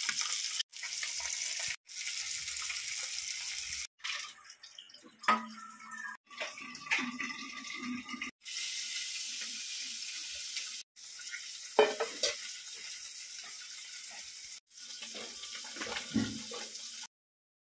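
Oil sizzling steadily as small masala-coated fish shallow-fry in a pan, broken off abruptly several times. A metal spatula scrapes and knocks against the pan a few times in the middle and again near the end.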